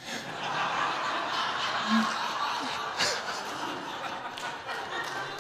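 Congregation laughing together at the punchline of a joke, the laughter coming in all at once and slowly dying away.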